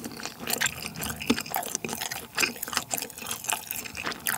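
Close-miked wet chewing of a bite of spicy dumpling: a quick, irregular run of small wet smacks and clicks from the mouth.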